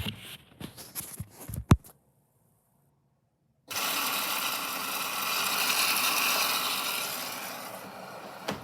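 Washing machine: a few sharp clicks and knocks, then, after a cut, a steady rushing noise from the machine that grows louder and then slowly fades.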